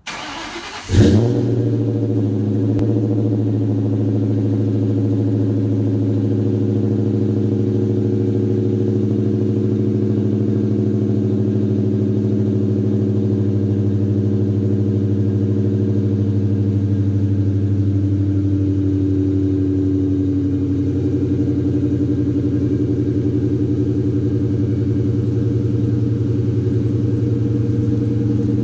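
2003 Mustang SVT Cobra's supercharged 4.6-litre V8, exhausting through long-tube headers, an off-road X-pipe and Flowmaster mufflers, cold-started: a brief crank, a loud flare as it catches about a second in, then a steady fast cold idle whose pitch dips slightly about twenty seconds in. The owner finds this exhaust tinny, 'like a tin can'.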